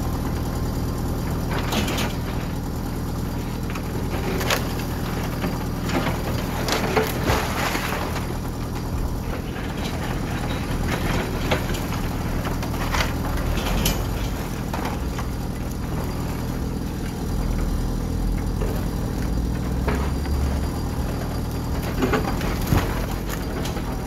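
JCB 3CX backhoe loader's diesel engine running steadily while the backhoe bucket digs and drags through a heap of broken bricks and timber, with irregular clattering knocks of rubble scraping and tumbling.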